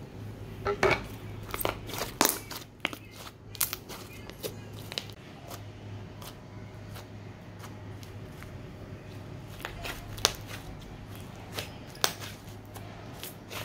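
Inflating slime squeezed and poked by hand, giving off irregular sharp pops and crackles as trapped air bubbles burst.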